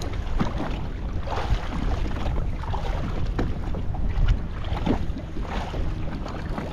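Wind rumbling on the microphone over water lapping and slapping against the hull of a boat at anchor, with a few light knocks.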